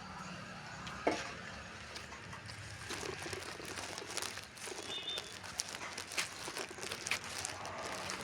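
Bricklaying work: scattered scrapes, taps and clicks of a trowel, bricks and mortar, with one sharper knock about a second in.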